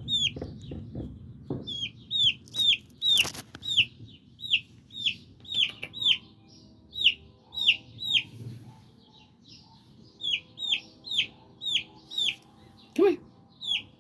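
Baby chick peeping loudly and insistently: a fast run of high, downward-sliding peeps, two or three a second, with a short lull in the middle, the call of a chick separated from its brood mates. A brief knock about three seconds in.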